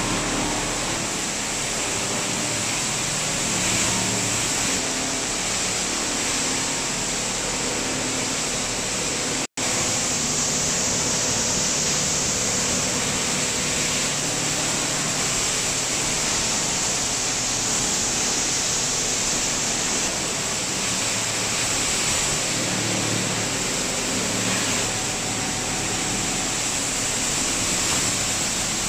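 Steady noise of a plastic washing line at work: water pouring and splashing into the washing troughs over the running machinery's low hum. The sound drops out for an instant about nine and a half seconds in.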